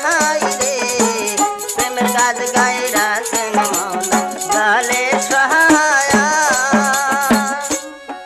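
Sufi devotional song: an ornamented, wavering sung melody over a fast, even beat of rattling hand percussion. The music breaks off near the end.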